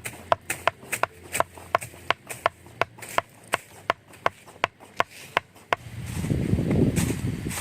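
Wood being chopped with a blade: quick, regular strikes, about three a second. Near the end the strikes stop and a low rushing noise swells up.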